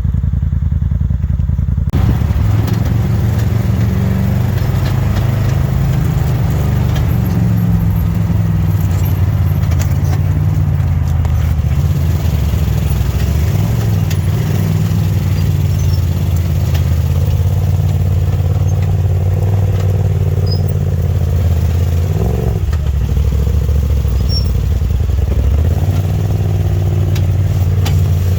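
Polaris RZR side-by-side engine running under way on a trail, its pitch rising and falling with the throttle, with a dip about 22 seconds in.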